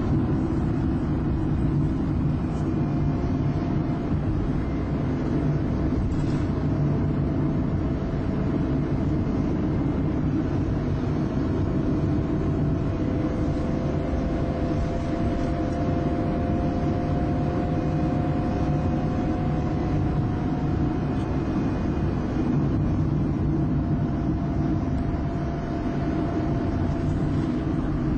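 Car driving at road speed, heard from inside the cabin: a steady low rumble of engine and tyres on the road, with a faint whine that appears a few seconds in, slowly rises in pitch and fades near the end.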